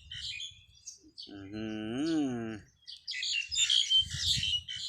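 Small birds chirping in quick, busy bursts near the start and again in the last second or so. In between, one low drawn-out voice-like call rises and falls in pitch for about a second.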